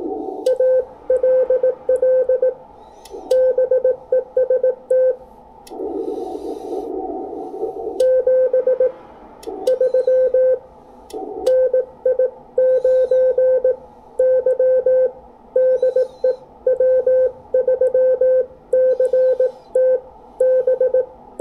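Morse code sent by hand on an iambic paddle, heard as an Icom IC-7300 transceiver's sidetone: a steady mid-pitched beep keyed into quick dots and dashes, in groups of characters with short gaps. A rush of hiss fills the longer pauses between groups.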